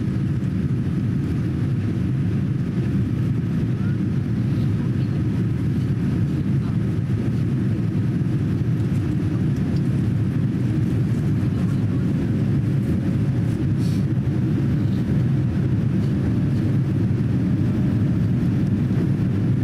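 Cabin noise inside a Boeing 787-9 airliner in the climb after takeoff: engines and airflow make a steady low roar, with a faint steady tone above it. A small click sounds about fourteen seconds in.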